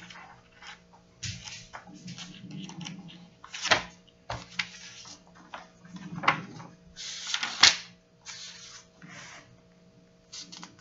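Paper pages of a Bible rustling and being turned, with a few sharper knocks and clicks, over a faint steady hum.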